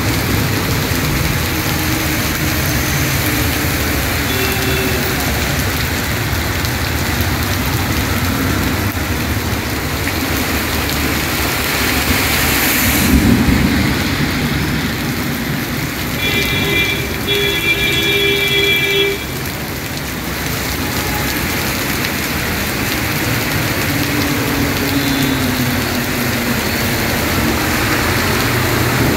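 Heavy rain pouring steadily onto a road, with vehicle tyres hissing past on the wet surface. A little after halfway, a vehicle horn sounds in two blasts that cut off suddenly.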